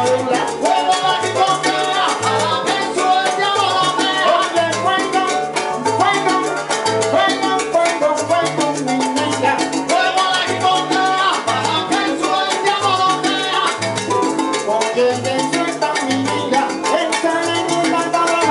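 Live salsa band playing, with an electric upright bass repeating a short, punchy bass line under keyboard and drum kit.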